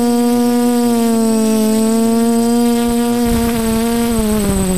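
Drone propellers humming at one steady pitch; about four seconds in the pitch slides down as the motors slow, with low rumbling underneath from about three seconds in.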